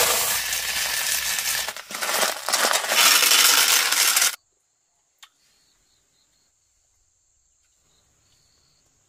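Loud rustling and crunching that cuts off suddenly about four seconds in, leaving only a faint, steady, high-pitched whine.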